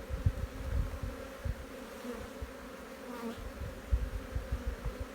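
Honeybees buzzing in a steady hum around an open hive, with irregular low rumbling bumps on the microphone, mostly in the first second or so and again about four seconds in.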